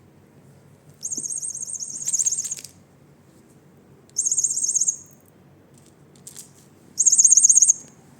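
Electronic cat toy mouse giving off a high, fast-warbling chirp in three short bursts: about a second in, around four seconds in, and near the end.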